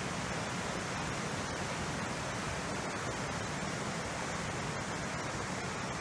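Whitewater rushing through a rocky chute and cascade: a steady, even rush of falling water.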